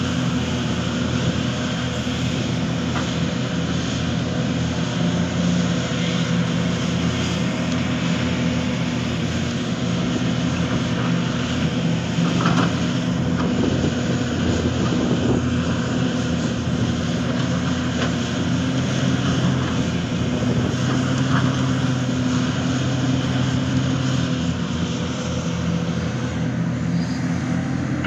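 Hitachi Zaxis 490 LCH excavator's diesel engine running steadily under working load, its note rising and easing a little, with a few short knocks about 12, 15 and 21 seconds in.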